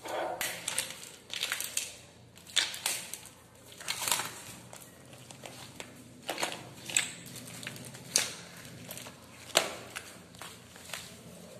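Irregular rustling, crinkling and light clattering of seized mobile phones, chargers, cables and plastic wrapping being handled, with sharp clicks here and there.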